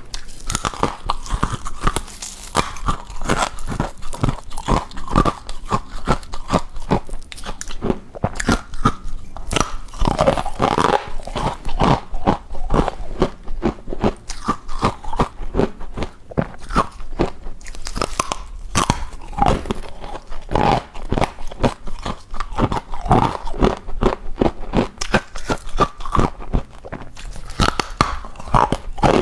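Close-up crunching and chewing of hard deep-freezer ice, in rapid repeated bites and crunches.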